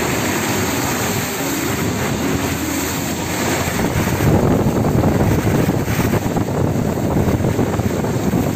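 Wind rushing over the microphone with a steady hiss of water from a rain-soaked road, recorded from a moving car with the window open. It grows louder about halfway through.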